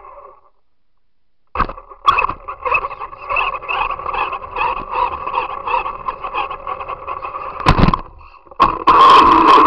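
Radio-controlled car's motor and drivetrain heard on board, running with a steady high-pitched hum over the rattle of the wheels on asphalt. The sound cuts out about half a second in and comes back a second later; two sharp knocks come near the end, and it gets louder just after them.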